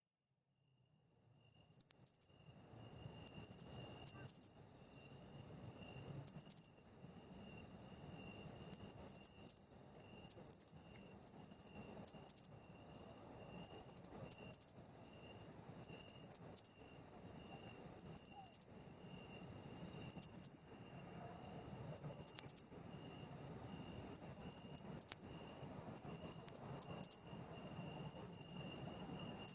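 Matsumushi pine cricket (Xenogryllus marmoratus) singing its "chin-chiro-rin" call: short, high chirps in groups of two or three, repeated every second or two, starting about a second and a half in.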